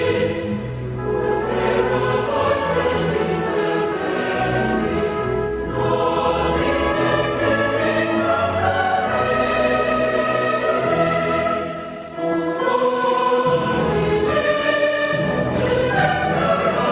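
Choral and orchestral music, with a choir holding long chords over orchestra; it drops away briefly about twelve seconds in, then comes back.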